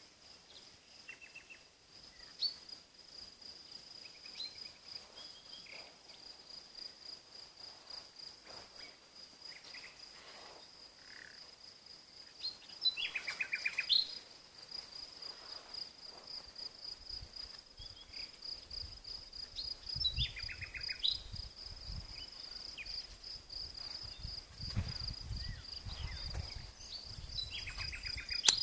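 Crickets chirping in a steady high-pitched pulse throughout, with birds calling now and then; the loudest call is a short descending trill, heard about halfway through and twice more later. In the second half a low rumble comes and goes underneath.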